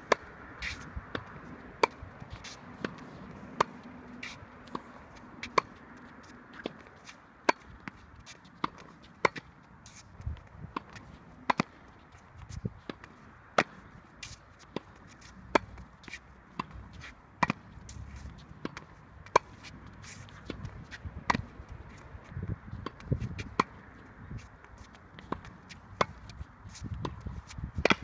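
Tennis balls struck by rackets in a volley drill on a hard court: sharp pops about every one to two seconds, some louder and some fainter, with shoe scuffs and footsteps between the hits.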